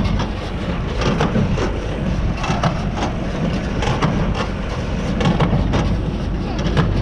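Tractor engine running steadily while it drives a New Holland 68 small square baler, which adds repeated knocks from its working mechanism as it packs hay into bales.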